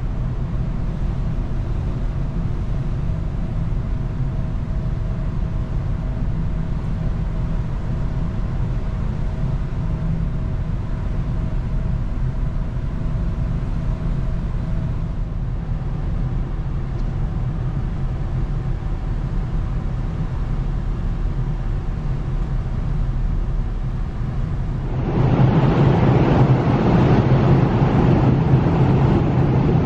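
Steady low rumble of a large ferry's machinery on its open deck, with faint steady hum tones over it. About 25 seconds in, louder rushing wind and sea noise takes over.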